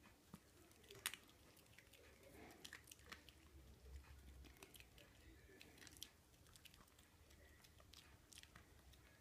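A small dog chewing a hard dog biscuit: faint, irregular crunches, the sharpest about a second in.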